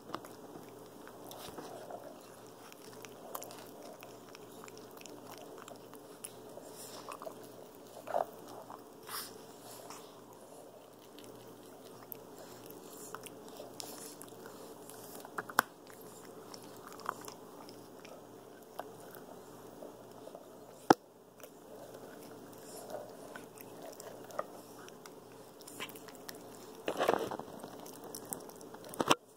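Capuchin monkey chewing and biting a soft spiky rubber toy close to the microphone, with scattered clicks and a louder spell of chewing near the end.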